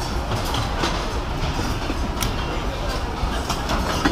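Factory floor din of a busy cigar rolling hall: a steady low rumble with the murmur of many workers' voices and scattered clicks and knocks from the benches.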